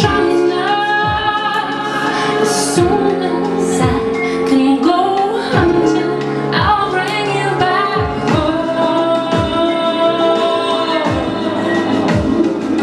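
Live song: a woman singing a slow melody with long held notes into a microphone, over backing music with a deep kick drum that sweeps downward roughly once a second.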